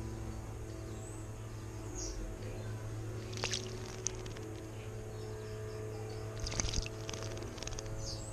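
European robin bathing in a shallow birdbath, splashing water with its wings in short flurries about halfway through and again near the end. Background music of held chords plays throughout.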